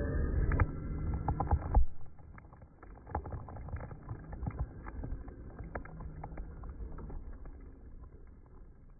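Slowed-down, deep-pitched sound of an Arrma Kraton 4S RC buggy's motor and drivetrain launching on dirt. The loud rumble cuts off suddenly about two seconds in, leaving a faint low rumble with scattered ticks that fades away.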